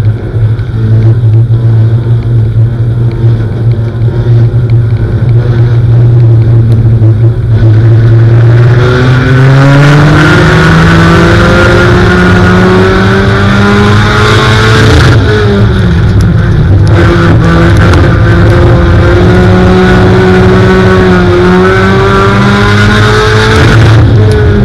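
Four-cylinder dirt-track stock car engine heard loud from inside the cockpit. It runs steadily at low revs at first, then climbs in pitch about eight seconds in. It drops back briefly around fifteen seconds in, then holds high revs that rise and dip a little.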